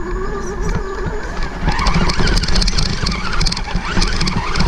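Traxxas 1/16 Summit RC truck's electric motor whining as it drives through long grass, the pitch wavering with the throttle and climbing higher from about two seconds in. Grass stalks tick and slap against the truck and onboard camera throughout, over a low rumble.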